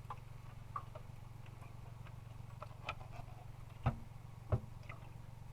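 Scattered light plastic clicks and knocks from handling an ultrasonic humidifier's water tank and cap, with two louder knocks in the second half.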